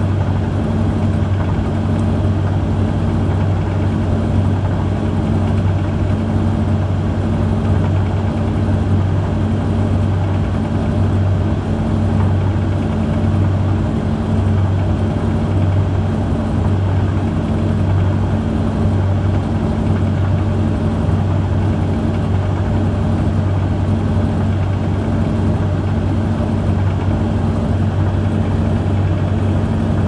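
Hoover Vision Tech washer-dryer tumbling a load in its cool-down stage at the end of drying: a steady, even motor and fan hum with a strong low drone.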